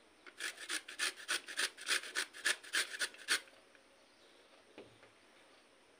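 A carrot being grated on a flat stainless-steel hand grater: a quick run of about fifteen rasping strokes, roughly five a second, that stops about three and a half seconds in.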